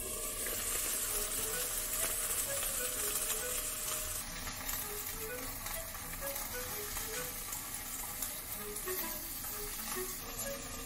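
Sugar snap peas sizzling in a nonstick frying pan, the sizzle swelling as the lid comes off at the start, then stirred with chopsticks. Soft background music plays over it.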